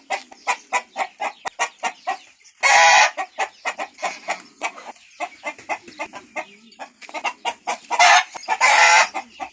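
Chickens clucking rapidly, several short calls a second. Loud, longer calls break in about three seconds in and twice near the end.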